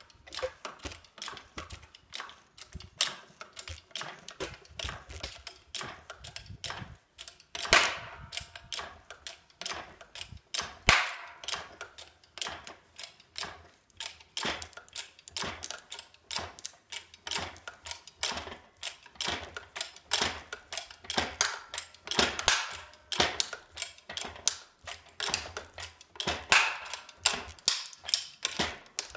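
Hydraulic bottle jack of a homemade hard-drive press being pumped by hand. It makes a long run of quick metallic clicks and ticks from the pump handle and press, with a few louder sharp clacks about 8, 11, 22 and 26 seconds in.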